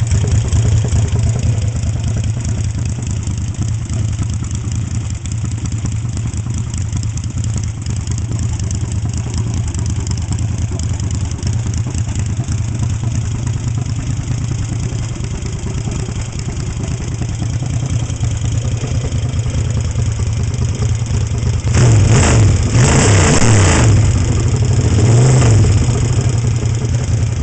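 Yamaha XS1 650 parallel-twin engine, rephased to a 277-degree crank and fitted with a 750 big-bore kit, running on a stand through short cutoff exhaust pipes during its first runs after ignition timing. It runs steadily, then is revved twice near the end.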